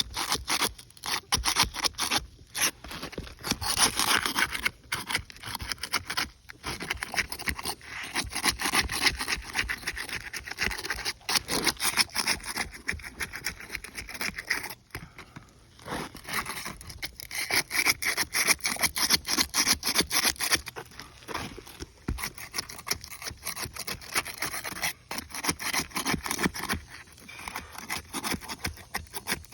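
Repeated scraping and rubbing on roof shingles, in quick, irregular gritty strokes with a few short pauses.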